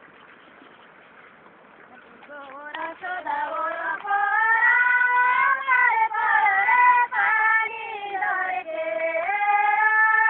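A high voice sings a Nepali asare rice-planting folk song, with long, ornamented held notes; the singing begins about two seconds in.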